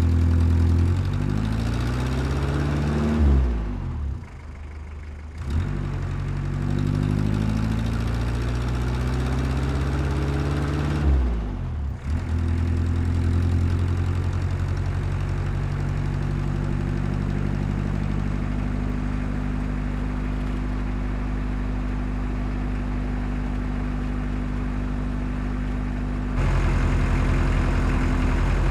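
Diesel engine of heavy earthmoving equipment running, revving up and dropping back twice, then running at a steady speed. The engine sound changes abruptly near the end, louder and deeper.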